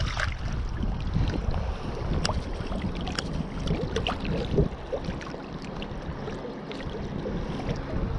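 River water running and splashing around wading legs, with scattered small clicks and taps.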